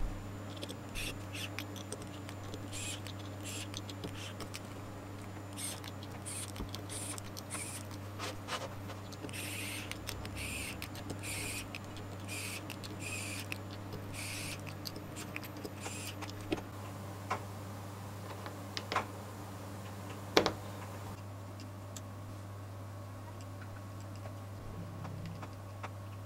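Pen-style mini electric screwdriver running in many short, quick bursts as it drives small screws into a metal model-engine plate. Near the end come a few separate sharp clicks of small metal parts. A steady low hum runs underneath.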